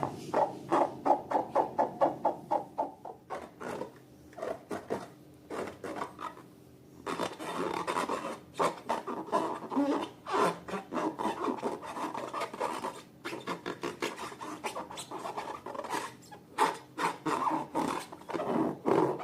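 Slime being stirred and worked, a wet rubbing and scraping: about three to four even strokes a second for the first few seconds, then sparser, then a denser irregular run.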